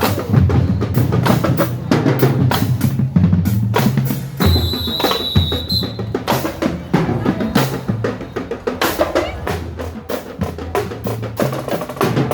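Marching band drumline playing: rapid snare drum hits over pitched bass drum strokes. A brief high steady tone sounds for about a second and a half near the middle.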